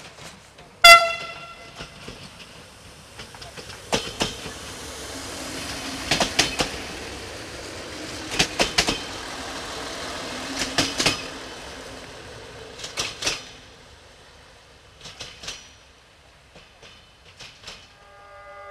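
A Siemens Desiro diesel multiple unit gives one short horn toot, then passes close by with its engine running. Groups of sharp wheel clicks over rail joints come about every two seconds, then fade as it draws away.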